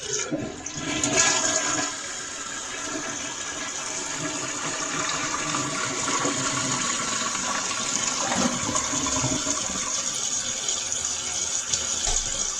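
Toilet flushing: a loud rush of water as the bowl empties, settling after about two seconds into a steady hiss of the tank refilling.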